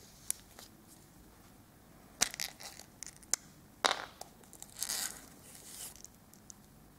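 Small plastic candy tube being opened by hand: a few sharp plastic clicks and snaps, then a crinkly rustle as the white plastic toy capsule inside is pulled out.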